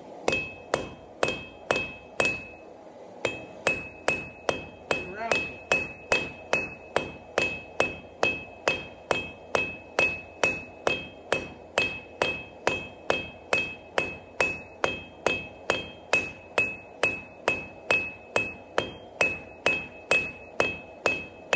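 Hand hammer striking a thin, hot round bar on an anvil, steady blows about two a second with a brief pause about three seconds in, each blow leaving a high ring from the anvil: a small round bar being drawn out into a taper.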